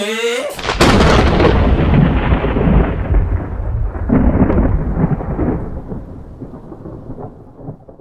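Thunderclap sound effect: a sudden loud crack about a second in, then a long rumble that fades away over several seconds, with a smaller swell midway.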